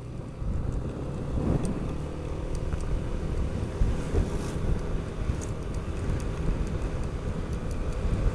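Yamaha NMAX scooter's single-cylinder engine running at steady road speed, heard as an even low rumble of engine and road noise from the rider's own machine.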